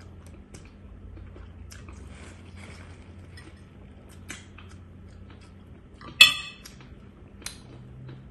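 A fork clicking and clinking against a ceramic plate during a meal, with one sharp, ringing clink about six seconds in and a lighter one a second later.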